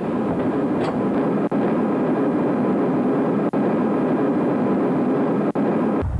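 Steady airliner cabin noise: an even rumble and hiss of the engines and air heard from inside the cabin. It has brief dropouts every two seconds and changes abruptly near the end.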